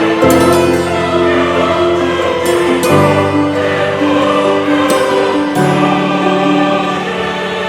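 Background music with choral singing: sustained chords that change about every one to three seconds.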